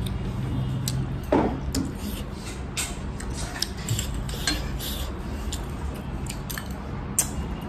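Metal fork clinking and scraping against a ceramic plate and a small sauce bowl while noodles are eaten, a string of sharp clicks with a louder knock a little over a second in. A steady low hum runs underneath.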